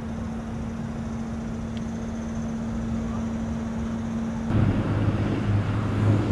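Outdoor background noise picked up by a camcorder microphone: a steady low hum under an even hiss. About four and a half seconds in it changes abruptly to a louder, deeper hum.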